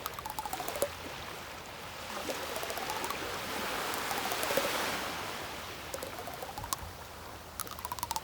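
A wave washing in, swelling to a peak about halfway through and then receding. Faint tones glide up and down, and short runs of rapid clicks come near the start and again near the end.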